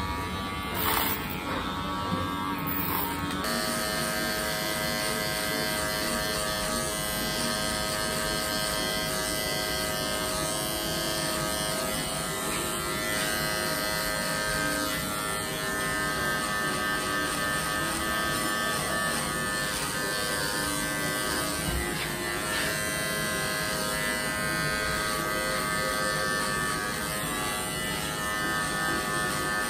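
Cordless electric hair clipper running with a steady buzz as it is worked over a comb, cutting the short hair at the side of the head.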